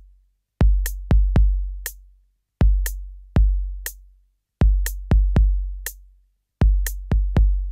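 Electronic music: a sparse beat of deep bass kicks and sharp high clicks in short phrases about every two seconds, with brief silences between. Held synth tones come in at the very end.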